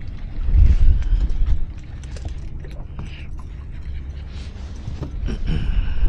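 Wind buffeting the microphone, heaviest for the first second and a half or so, over a steady low hum for the rest.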